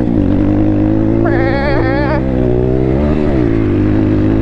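Thumpstar 140cc pit bike's single-cylinder four-stroke engine running under throttle while riding, its pitch dipping and climbing back twice.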